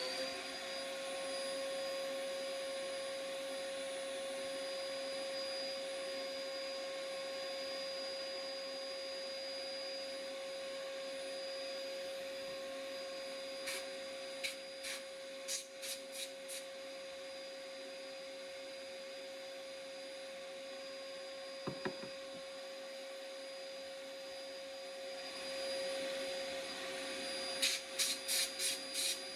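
A small high-speed electric motor whirs up to speed and runs at a steady pitch, with a few quick clusters of sharp clicks about halfway through and again near the end.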